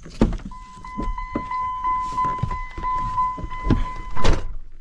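A 2000 Dodge Ram 1500 pickup's driver door unlatches with a clunk and swings open, and a steady electronic warning chime sounds from the dash while someone climbs into the cab with knocks and shuffles. About four seconds in the door slams shut and the chime stops.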